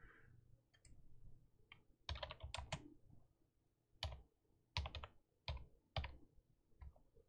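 Faint computer keyboard keystrokes as a shell command is typed: a quick run of key clicks about two seconds in, then single keystrokes spaced roughly half a second to a second apart.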